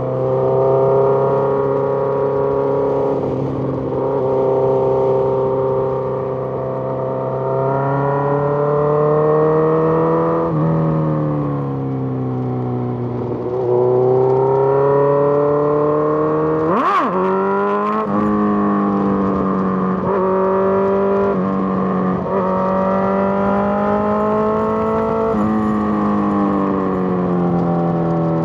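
Suzuki GSX-R1000's inline-four engine pulling through the gears and easing off, its pitch rising with each pull and dropping at each gear change. About seventeen seconds in it gives one brief sharp rev spike.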